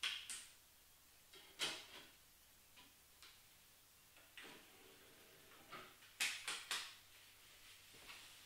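Sony CD player being loaded: sharp clicks as a disc is handled and set in the tray, then a button press and the motorised tray sliding shut, followed by a quick run of three clicks.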